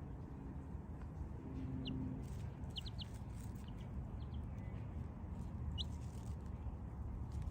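Duckling peeping: a handful of short, high, slightly rising peeps scattered over several seconds, above a low steady rumble.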